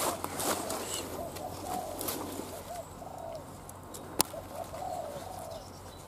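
Spotted doves cooing: two runs of soft, low, arched coos, with a single sharp click about four seconds in.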